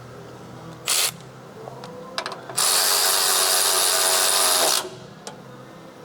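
Handheld power tool: a short blip about a second in, a few clicks, then a steady run of about two seconds that stops abruptly.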